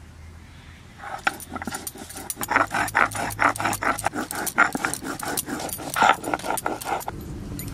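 Stone roller (nora) worked back and forth on a flat stone grinding slab (shil), grinding red chillies into paste. It makes a fast run of gritty scraping clicks that starts about a second in and stops shortly before the end.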